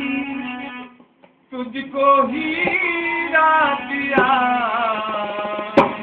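Devotional bhajan music: a harmonium plays held notes, with singing and a few dholak drum strokes, the loudest stroke near the end. The music breaks off briefly about a second in.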